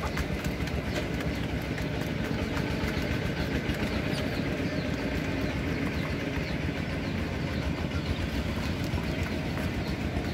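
A steady low rumble of unclear source, with light clicks of chickens pecking grain from metal feed pans and a few faint high chick peeps.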